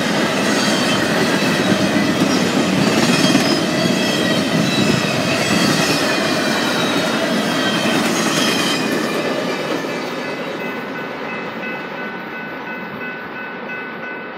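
Double-stack intermodal well cars rolling past on the rails, a dense rumble of steel wheels with thin high-pitched ringing tones over it. About two-thirds of the way in the sound begins to fade as the end of the train pulls away down the track.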